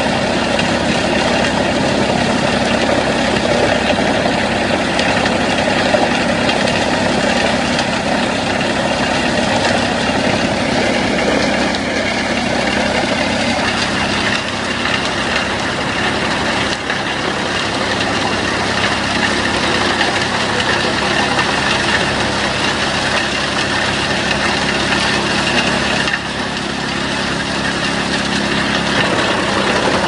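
A heavy machine's engine running steadily and loudly under a dense mechanical roar, dropping slightly in level about 26 seconds in.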